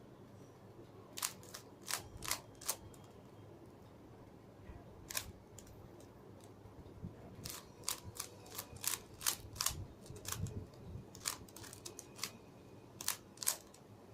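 Plastic Rubik's cube layers being twisted by hand: sharp, irregular clicks in quick clusters as faces turn and snap into alignment, with short pauses between runs of moves.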